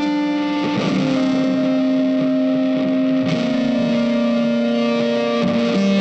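Slow instrumental background music of long held notes, the chord shifting about a second in, again around three seconds in, and near the end.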